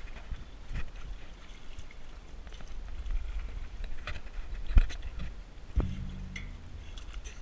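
Knocks and rubbing of an action camera being handled and tipped about, over a low rumble. There are several sharp knocks, the loudest about five seconds in and another about a second later.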